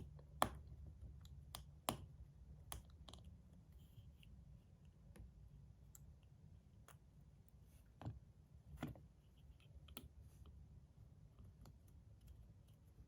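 Faint, irregular clicks and taps of small metal parts as screws are driven into a fidget slider with a small screwdriver, over near-silent room tone.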